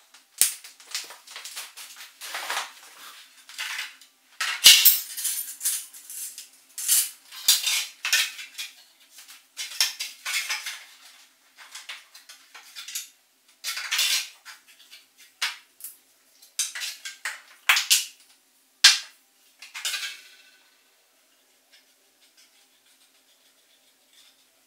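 Thin-walled 3D-printed plastic wing sections of a model plane being handled, knocked together and set down on a table: an irregular run of hollow clattering and rattling knocks that stops about twenty seconds in, leaving only a few faint ticks.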